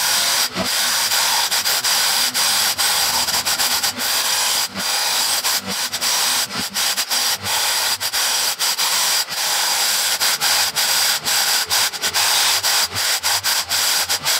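Makita electric demolition hammer with a wide scraper blade, hammering as it scrapes old flooring adhesive off a concrete subfloor. It is a loud, dense rattling hiss broken by many brief pauses.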